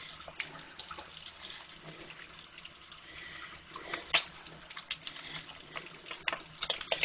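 Bar soap being worked into a lather in wet hands under running tap water: a steady wet hiss with squishing and a few sharper splashes, about four seconds in and again near the end.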